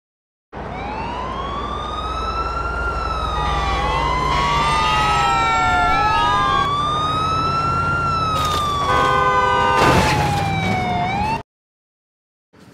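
Wailing emergency-vehicle sirens, several at once, overlapping as each rises and falls in pitch over a low engine rumble, with a steady horn-like blast about nine seconds in. The sound cuts off suddenly shortly before the end.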